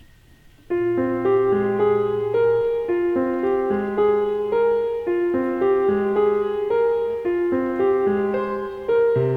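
Keyboard music, piano-like in sound, starting suddenly under a second in: a repeating broken-chord pattern of short notes over long held bass notes.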